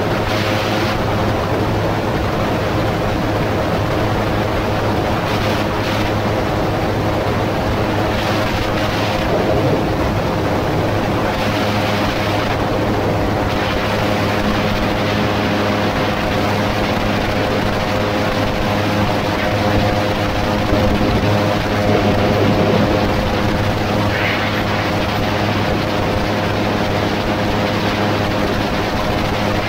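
AutoGyro MTOSport gyroplane in cruising flight. The engine and pusher propeller hold a steady drone under a broad rush of wind across the open cockpit, and the wind swells briefly now and then.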